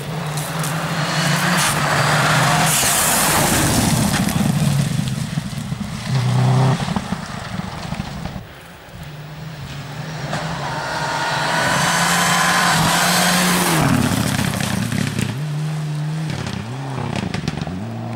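Rally car engine at full throttle passing close by, rising and falling in pitch with gear changes. It is loudest about three seconds in and again from about ten to thirteen seconds in.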